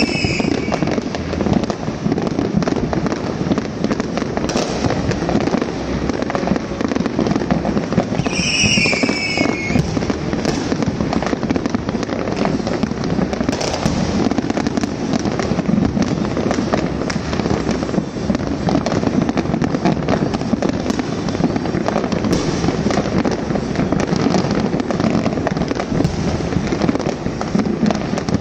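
New Year's fireworks and firecrackers going off without a break, a dense run of pops, bangs and crackle. A short falling whistle cuts through at the very start and again about eight seconds in.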